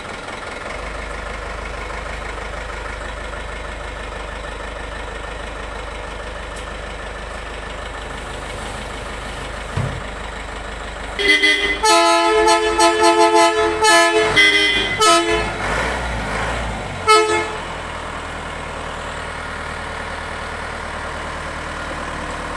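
Tata 407 minibus's diesel engine idling steadily. About halfway through, its multi-tone musical horn sounds for about six seconds in a quick, broken run of loud notes that change pitch.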